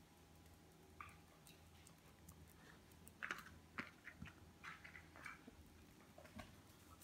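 Faint, scattered clicks and taps of a beagle puppy moving about with its ball on a hard tile floor, most of them coming from about three seconds in.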